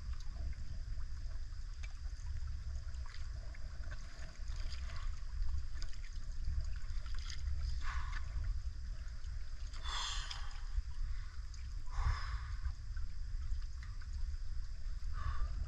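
A small boat being paddled: paddle strokes splash in the water a few times, about two seconds apart, over a steady low rumble.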